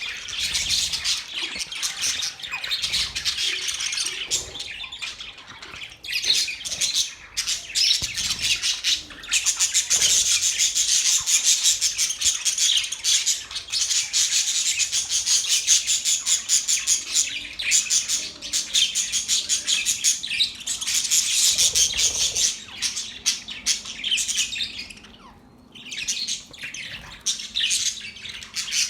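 Budgerigars chirping and chattering: a dense run of rapid high chirps with occasional squawks, easing off briefly twice.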